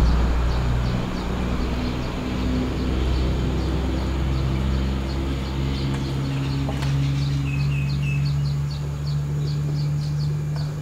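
Rapid, high chirping repeated several times a second over a steady low hum, with a couple of light clicks about six and seven seconds in as marinated chicken pieces are laid on a perforated aluminium steamer tray.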